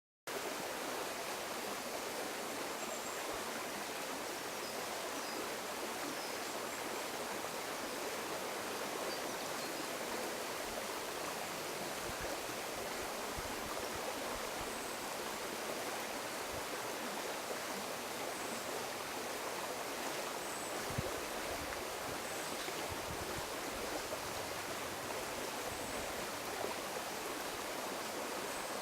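River water rushing over rocks, a steady, even sound that starts suddenly at the very beginning.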